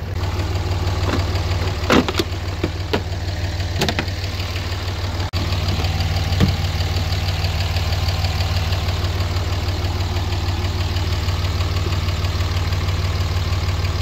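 Diesel pickup engine idling steadily with a knocking clatter while it boosts a car's dead battery through jumper cables. A couple of sharp clicks come in the first few seconds.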